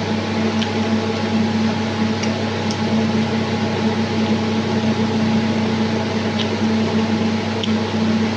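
Steady whirring hum of a running room appliance, most like an electric fan, with a constant low tone. A few faint short clicks come and go over it.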